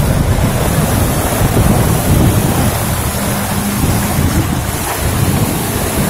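Wind buffeting the microphone over the steady wash of surf breaking on the beach.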